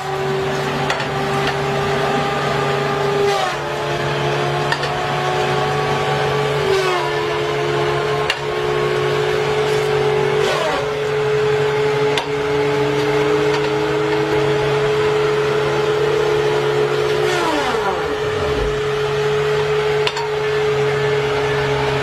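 Tigercat wheeled feller buncher running, its disc saw head spinning with a steady whine over the diesel engine. The whine sags in pitch about four times as the saw bites through tree trunks, the last time dropping steeply.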